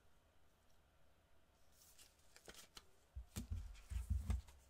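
Trading cards handled with nitrile-gloved hands: light clicks and rustles of cards against plastic card stands, with several dull low thumps on the table about three to four seconds in.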